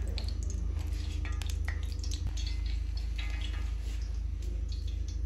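Oil heating in a steel frying pan on the stove, giving scattered small pops and crackles over a steady low hum.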